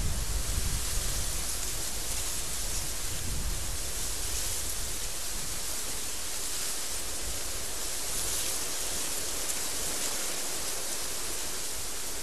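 Desert windstorm: wind blowing with a steady high hiss, with gusty low rumbling during the first few seconds that dies away.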